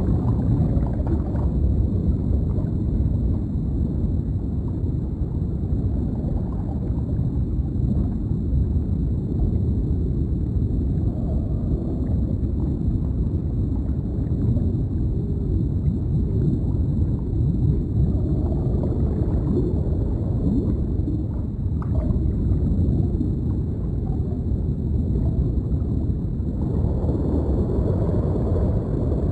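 Deep underwater ambience: a steady low rumble of water with occasional gurgling bubbles.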